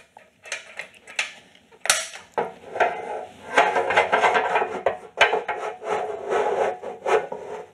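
Metal parts of a steel welding cart being handled and fitted: a few small clicks and a sharp knock, then several seconds of metal scraping and rattling as the handle tube is worked into the cart frame.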